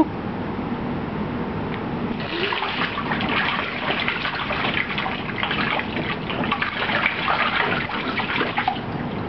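Water splashing in a small inflatable paddling pool as a baby beats at it with hands and feet: a run of quick, irregular splashes that starts about two seconds in and stops just before the end.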